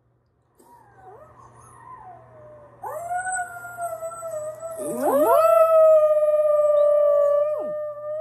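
Dog howling from a recording played through a tablet's speaker: faint wavering howls that grow louder about three seconds in, overlapping rising howls about five seconds in, then one long, loud, held howl.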